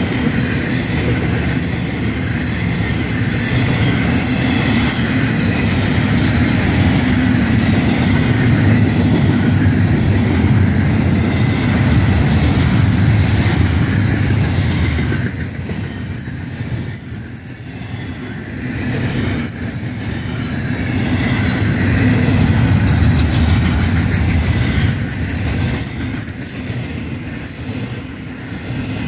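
Intermodal freight train's cars rolling past at close range: steel wheels on the rails making a steady rumble and rattle. It eases off for a few seconds about halfway through, then builds again.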